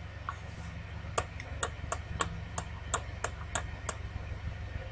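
Computer mouse scroll wheel clicking in quick, even ticks, about three a second, starting about a second in and stopping near the end, over a faint low hum.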